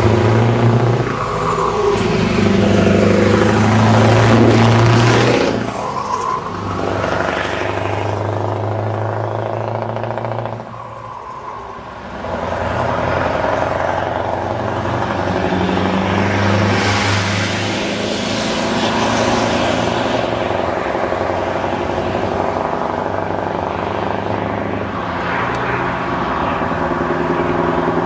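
Scania 164 580's 16-litre V8 diesel running loud through its exhaust as the truck drives past, its pitch rising and falling with the revs. There is a short lull about ten seconds in before it picks up again.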